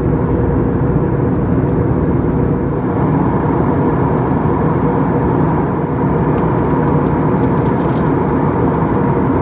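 Steady cabin noise inside an Airbus A321neo in its climb: the engines and the rush of air over the fuselage make an even, loud rumble, with a faint steady hum running through it.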